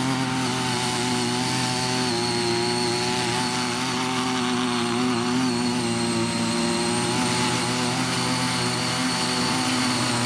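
The small 48.6 cc petrol engine of a CY50 mini rotary tiller running steadily under load while its six tilling blades work through unloosened soil.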